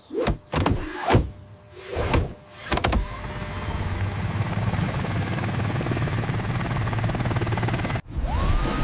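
Cartoon sound effects: four or five quick whooshes, then a steady motor-like whirr that cuts off abruptly near the end, followed by a rising-then-falling glide.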